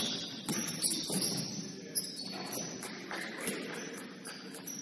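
Gym ambience during a basketball game: a murmur of voices in a large echoing hall, with scattered short high-pitched squeaks and clicks.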